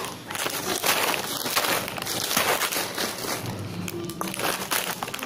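A plastic snack packet crinkling and rustling as it is shaken and handled, in quick irregular crackles.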